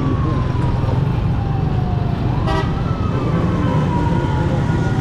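A siren wailing over the steady low rumble of a Honda CG 125 motorcycle ride. Its pitch rises quickly and then slides slowly down, twice, and a short horn toot sounds about halfway through.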